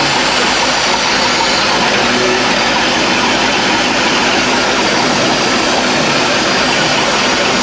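Boat's starboard inboard engine idling steadily, heard up close inside the engine compartment; a loud, even running noise with no change in speed.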